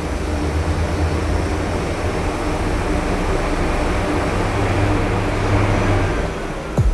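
DN Solutions SMX 3100ST mill-turn center spinning a heavy cast-iron brake rotor while a ceramic insert turns it dry, with no coolant: a steady machine sound with a low hum. A sharp click sounds near the end.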